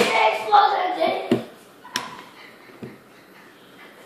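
A voice trails off in the first second. Then a hand staple gun gives three sharp clicks over about a second and a half as it drives staples through carpet into a wooden post.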